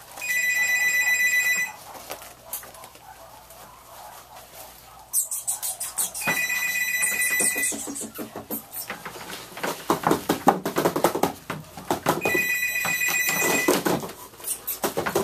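A telephone rings three times, each ring a two-note trill about a second and a half long, about six seconds apart. Between the later rings, Coton de Tulear puppies yap and scuffle at times as loudly as the ringing.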